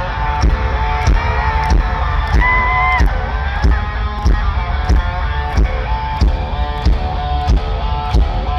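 Alternative metal band playing live: electric guitars holding long notes over a steady drum beat, with heavy, booming bass.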